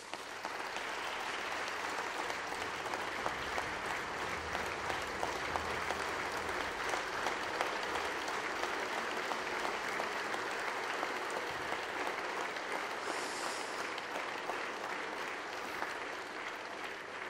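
A hall full of members of parliament applauding steadily, many hands clapping together with no voices over it.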